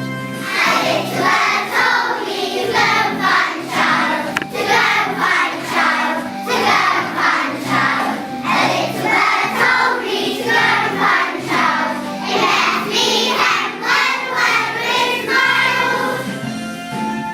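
Music with a group of voices singing, sounding like a choir, over steady instrumental accompaniment. The singing comes in about half a second in and stops shortly before the end, leaving the instruments alone.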